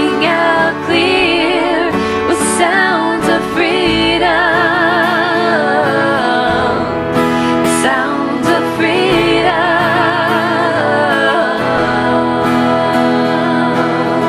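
Women's voices singing a worship song together over instrumental accompaniment, with long held notes sung with vibrato.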